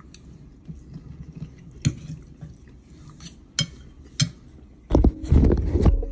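A fork clinking against a ceramic dinner plate in three sharp, separate clicks, then about a second of loud rubbing and knocking near the end.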